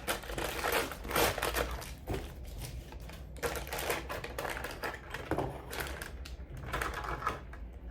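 Plastic packaging rustling and crinkling, with irregular clicks of small plastic toy accessories being handled.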